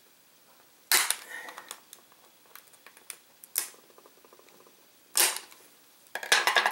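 Sharp plastic clicks and snaps as a thin pick pries at the seam of a DJI Phantom 4 drone battery's hard plastic case: single snaps at intervals, then a quick run of clicks near the end.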